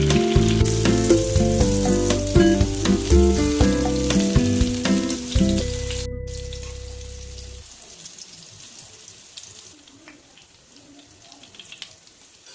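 Food frying and sizzling in hot oil in a pan, a crackling hiss with fine pops, under background music that stops about two-thirds of the way through, leaving a fainter sizzle.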